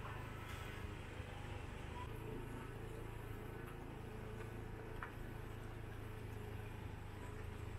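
Street ambience dominated by a steady low hum of traffic, with a few faint clicks and short tones over it.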